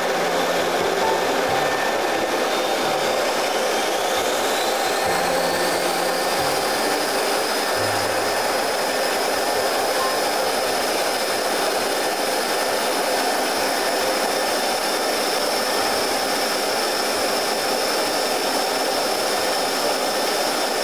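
Steady cabin noise from a C-141B Starlifter's four Pratt & Whitney TF33 turbofan engines and airflow, heard from inside the aircraft. A high engine whine rises in pitch over a few seconds about three seconds in, then holds steady.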